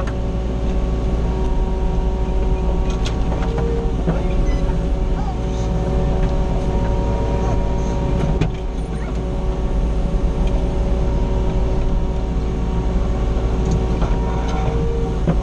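Mini excavator's diesel engine running steadily with a constant hum and whine, heard from inside the cab, dipping briefly about eight seconds in.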